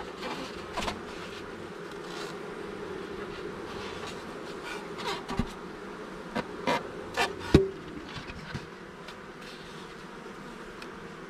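Honeybees buzzing steadily at an open polystyrene hive, with a few sharp knocks from the hive parts being handled, the loudest about seven and a half seconds in.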